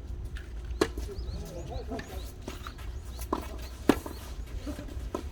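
Racket strikes on a tennis ball: two sharp loud hits about three seconds apart, with fainter bounces and clicks between them, over faint distant voices.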